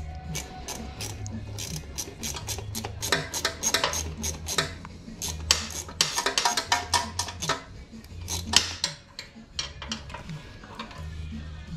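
Hand ratchet clicking in quick runs of sharp metallic clicks as a bolt is run in from under the car, busiest in the middle seconds.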